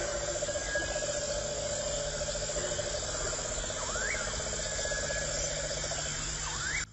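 Dense chorus of insects with a steady, fast trill, and two short rising-then-falling calls from an animal, about four seconds in and near the end.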